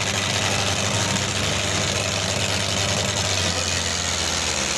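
Diesel tractor engine running steadily and loudly.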